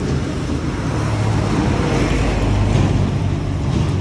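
Road traffic rumbling past, swelling to its loudest about two to three seconds in as a vehicle goes by, over an even hiss of oil sizzling in a wok of frying fritters.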